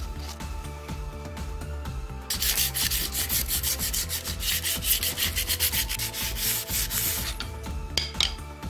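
Sandpaper rubbed by hand along a wooden hammer handle. Quick back-and-forth strokes start a couple of seconds in and run for about five seconds, followed by a few short scrapes near the end.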